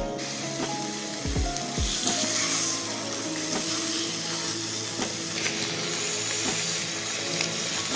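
Seasoned trout fillets sizzling in a hot frying pan as they are laid in, the hiss growing louder about two seconds in. Background music with a steady beat plays along.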